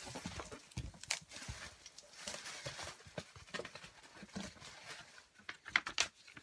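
Hands rummaging inside an opened cardboard box, rustling paper and knocking against the cardboard, with a quick run of louder clicks near the end.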